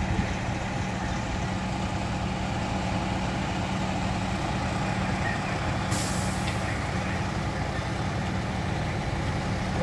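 Diesel fire trucks idling with a steady low rumble and a constant hum. About six seconds in, a brief high hiss.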